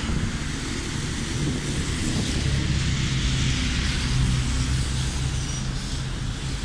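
Wind noise on the microphone of a moving bicycle, over traffic on a wet road: tyres hissing on wet asphalt, and a car passing close by in the middle of the stretch.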